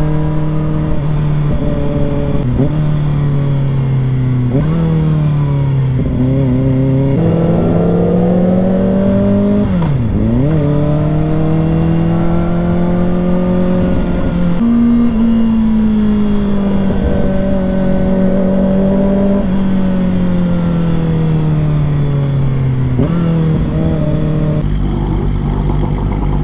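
Kawasaki Ninja ZX-4RR's inline-four engine running under way. Its pitch slowly rises and falls with the throttle, steps up suddenly a few times, and dips sharply and recovers about ten seconds in. A steady low rumble runs underneath.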